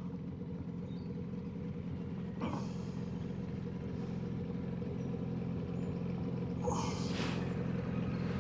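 Johnson 9.9 outboard motor running steadily at slow trolling speed, with two brief rushes of noise about two and a half and seven seconds in.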